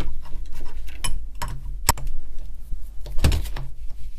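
Metal hand tools clicking and knocking against the cast housing of a demolition hammer being taken apart: scattered sharp clicks, the sharpest about two seconds in, and a heavier knock a little after three seconds.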